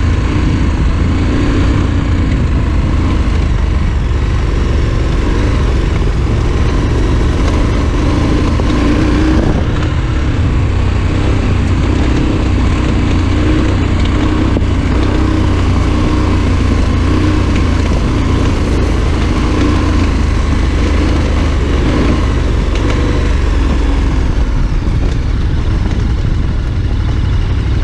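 Adventure motorcycle riding along a gravel dirt road: the engine runs steadily under heavy, even wind rumble on the bike-mounted camera's microphone.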